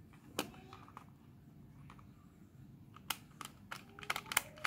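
Sharp clicks and ticks of a screwdriver tightening the input terminal screw on a SinoTimer SVP-916 plastic DIN-rail voltage protector: a single click near the start, then a quick run of about a dozen in the last second and a half.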